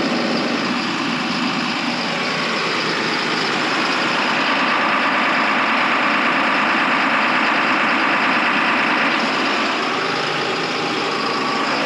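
Tractor engine running under PTO load, driving the unloading auger of a Brent 1082 grain cart, with grain rushing through the auger tube in a steady hiss. The rushing eases a little near the end as the cart's flow door closes.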